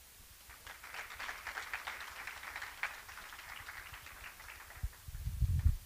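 Audience applauding, rising about a second in and fading out over the next few seconds. Low thuds near the end.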